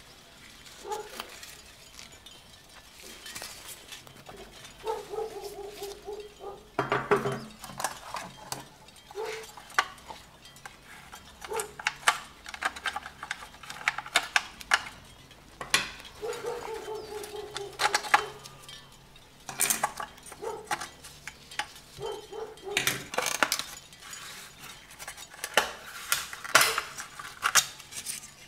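Small rusty metal and plastic parts of a toy model school bus clinking, clicking and knocking as they are handled and pulled apart by hand, with a few drawn-out squeaks of a second or two in between.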